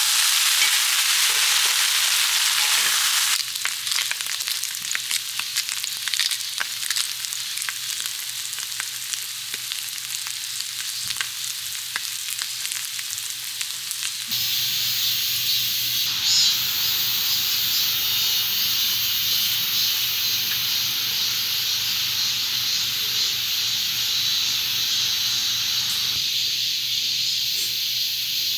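Food sizzling and frying in a hot pan, with spattering crackles in one stretch. The sound changes abruptly several times, at about 3, 14 and 26 seconds.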